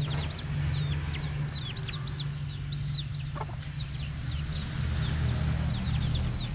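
Chicks peeping over and over, short high peeps coming several a second in loose clusters. A steady low hum runs underneath.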